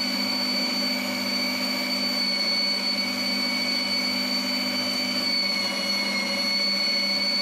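Electric meat grinder running steadily with a high whine as meat is fed through and minced.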